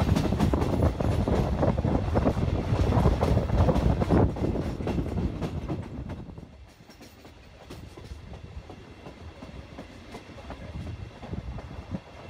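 Trenitalia regional passenger train running over the rails, heard close at the coach window: a loud rumble with rapid clicks from the wheels on the track. About six seconds in it drops suddenly to a much quieter, steadier running noise.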